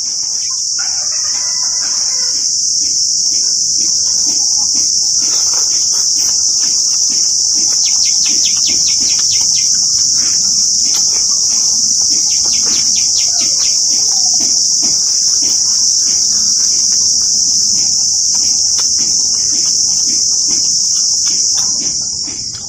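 Loud, steady high-pitched insect chorus, with faint scattered clicks and ticks beneath it.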